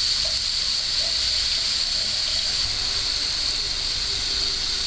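A wok of chicken and cauliflower broth on the heat, hissing and bubbling steadily.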